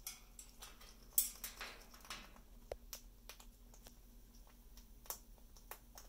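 Faint scattered clicks and taps from an Amazon parrot moving on its cage-top rail, with a louder click and about a second of scraping noise just after the one-second mark.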